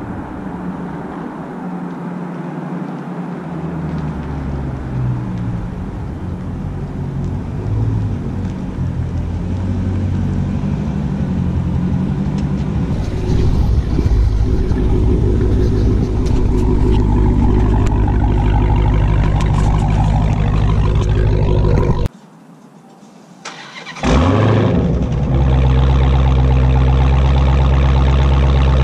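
Dodge Charger SRT Hellcat's supercharged 6.2-litre Hemi V8 on its stock exhaust, growing louder as the car comes up and passes close by about halfway through. After a brief drop it runs steadily close to the tailpipes.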